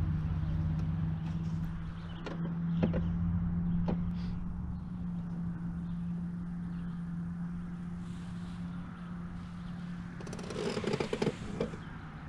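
Small boat motor running with a steady hum. Near the end comes a brief spell of clatter and scraping.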